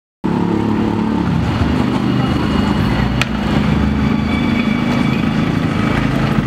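Street traffic: vehicle engines running steadily with a low rumble, starting abruptly, with one sharp click about three seconds in.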